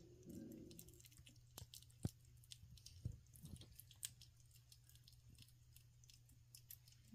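Kitten eating wet cat food from a bowl: faint, irregular wet clicks and smacks of chewing and licking. A steady low hum lies underneath.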